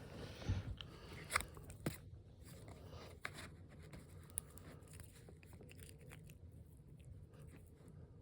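A cat playing with a cough drop: a handful of light clicks and taps, busiest in the first two seconds, then only faint scattered ticks.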